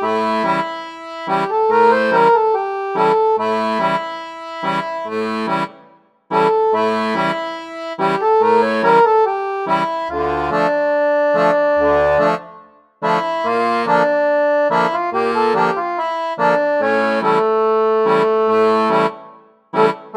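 Lively instrumental background music with held notes over a steady, bouncy beat. The tune breaks off briefly three times, about six, thirteen and twenty seconds in.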